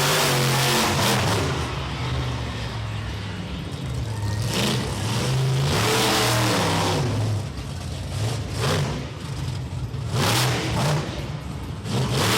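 Monster truck engine running hard and being revved, its pitch rising and falling, with several loud full-throttle surges.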